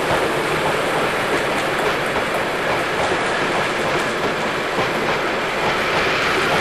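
Bachmann OO gauge Jubilee model locomotive running along the track: a steady whirring rumble of its motor and wheels on the rails.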